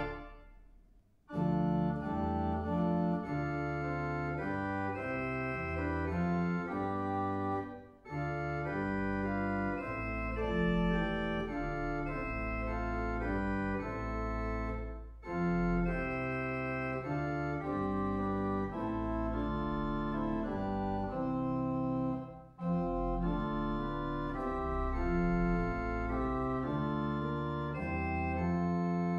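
Pipe organ (Boogaard/Elshout organ, 1986) playing a chorale setting with deep pedal bass, in phrases of about seven seconds with short breaks between them. A chord dies away in the church's reverberation at the start before the playing resumes.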